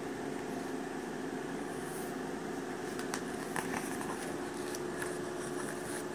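A steady hum with a faint tone in it, with a few short crackles and clicks of glossy yearbook pages being turned between about three and five seconds in.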